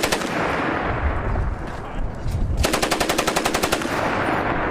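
Fully automatic rifle fire: the end of one burst right at the start, then a second burst of rapid shots, about a dozen a second and lasting about a second, a little past halfway through. Each burst rings out with a long echo after it.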